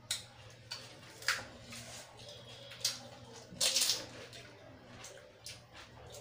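Eating sounds of a pani puri (puchka) race: crisp puri shells crunched and sour spiced water slurped, in several short separate bursts.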